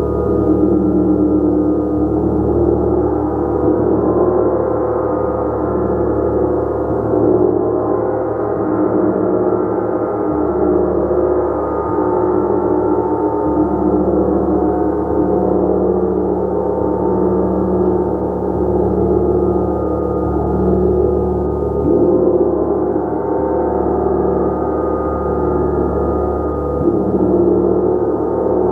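Gong played continuously, building a dense, sustained wash of overlapping ringing tones that swell and ebb without distinct strikes.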